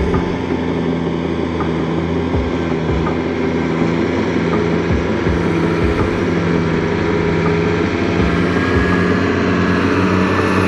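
Mercedes Unimog U1700L's six-cylinder diesel engine running at a steady pace as the truck crawls up a soft sand track.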